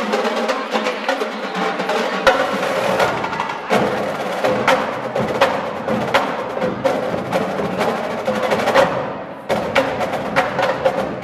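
Marching drumline of snare drums, tenor drums and bass drums playing a fast passage of rapid strokes and rolls, with a brief break about nine seconds in before it picks up again.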